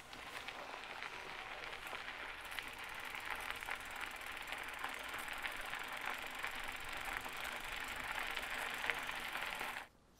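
Mountain-bike tyres rolling over an unpaved path: a steady hiss dotted with many small clicks of grit, cut off suddenly near the end.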